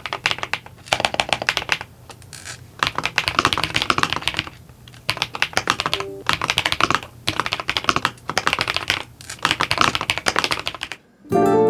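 Fast typing on a Royal Kludge S98 mechanical keyboard: a dense clatter of key clicks in bursts with short pauses, over soft background music. Near the end the typing stops and plucked guitar music comes in.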